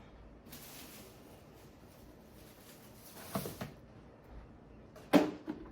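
Faint rustling of shopping items and packaging being handled, ending in a sharp knock about five seconds in as something is set down or picked up.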